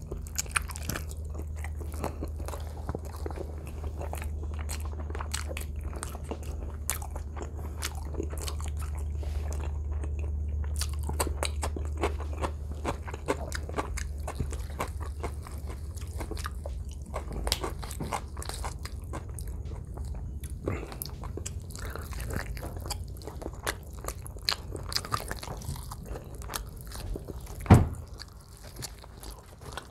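Close-miked biting and chewing of grilled chicken: many small irregular wet clicks and crunches as meat and skin are bitten, torn and chewed. A low steady hum underneath fades out about two-thirds of the way through, and a single sharp knock stands out near the end.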